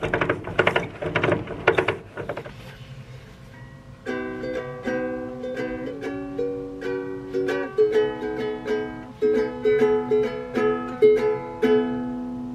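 Ukulele strummed in quick chords, then after a short lull a picked tune of single notes and chords.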